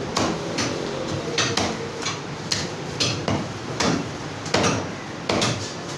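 Heavy butcher's cleaver chopping goat ribs into pieces on a wooden chopping block: repeated sharp chops at an uneven pace, roughly one every half second to second.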